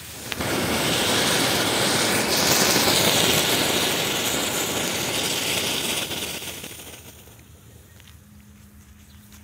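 Anar (flower pot) fountain firework spraying sparks with a loud steady hiss that starts just after the beginning and dies down over the last few seconds as it burns out.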